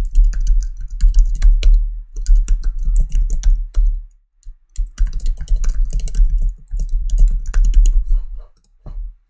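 Fast typing on a computer keyboard, in two runs of keystrokes with a pause of about a second in the middle.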